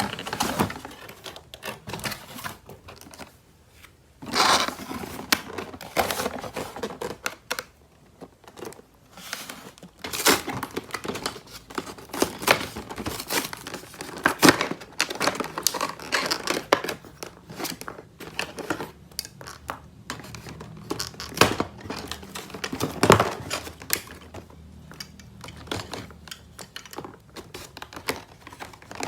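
Toy packaging being unwrapped by hand: crinkling and tearing in irregular bursts, mixed with sharp clicks and taps.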